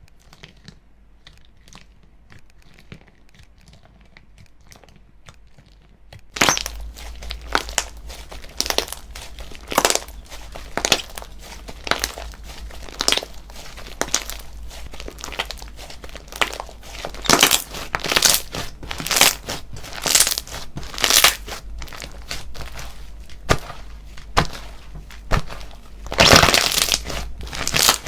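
Slime being squeezed and pressed by hand. Faint crackles at first, then from about six seconds in a dense crackling with a louder pop or squish about once a second, loudest near the end.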